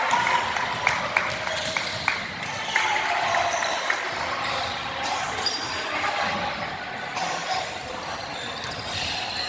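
A volleyball thudding sharply on a hard gym floor, several times in the first few seconds, over the murmur of a crowd in a large gym.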